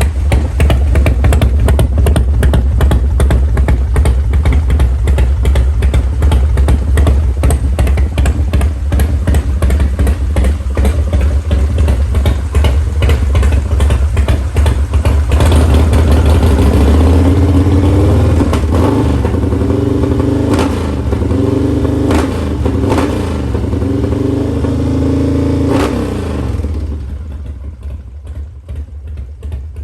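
Harley-Davidson FXR motorcycle's V-twin engine running with a dense low rumble. Its pitch rises and falls in the second half, then the engine sound cuts off near the end.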